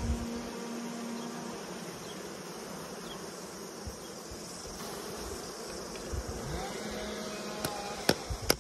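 Honeybees buzzing in a steady hum around an opened hive, with a few sharp clicks near the end.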